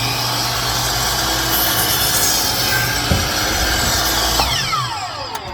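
Electric power saw cutting through pallet wood, running steadily at full speed; near the end the trigger is let go and the motor winds down with a falling whine.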